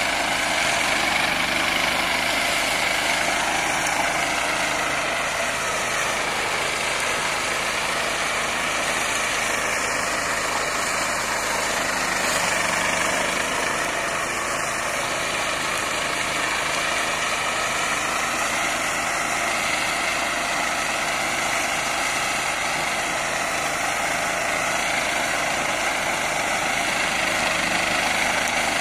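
Small TK14 tractor with a front-mounted mulcher running steadily while cutting tall grass, its engine note wavering slightly a few times as the load changes.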